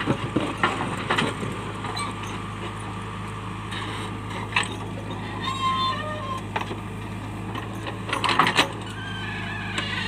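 JCB backhoe loader's diesel engine running steadily while its steel bucket digs into stony soil, with sharp clattering knocks of rock against the bucket, loudest just after the start and in a cluster about eight and a half seconds in.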